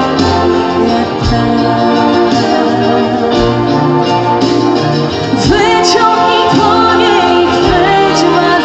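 Live music: a woman singing over sustained organ-like keyboard chords and bass, her voice coming in clearly about halfway through.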